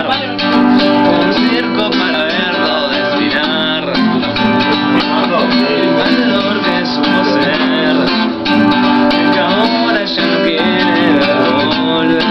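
Acoustic guitar strummed with voices singing along.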